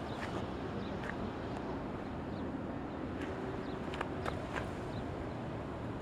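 Steady outdoor noise of wind and distant road traffic, with a few short clicks scattered through, loudest around four seconds in.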